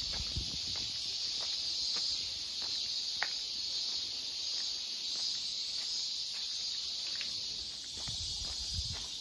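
A steady, high-pitched chorus of cicadas, with faint, regular footsteps on a path beneath it.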